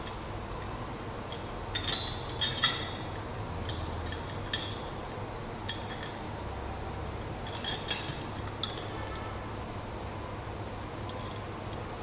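Small metal clinks and taps as bolts and nuts are fitted by hand to a metal antenna mount bracket. There are about a dozen sharp, short clicks at irregular intervals, loudest about four and a half and eight seconds in.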